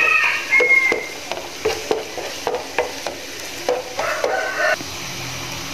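Wooden spatula stirring minced shallots and garlic frying in oil in a nonstick pan: light sizzling with repeated taps and scrapes of the spatula on the pan. A drawn-out pitched call sounds in the background near the start and again about four seconds in.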